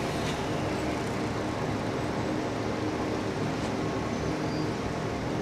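KiHa 11 diesel railcar idling at a standstill, its engine giving a steady low hum.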